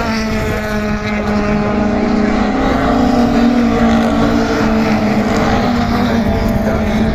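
Super Touring race car engines running on the circuit, a loud, steady drone with only slight changes in pitch.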